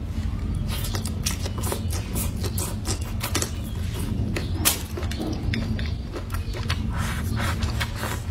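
Close-miked chewing and mouth sounds of a person eating blistered green peppers (tiger-skin peppers) with fermented black beans: many quick, irregular wet clicks and smacks, over a steady low hum.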